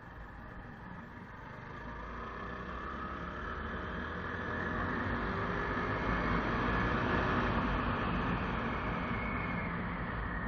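Motorcycle running as it speeds up on a dirt road, with wind rushing over the microphone. It grows steadily louder for the first six or seven seconds, then levels off and eases slightly.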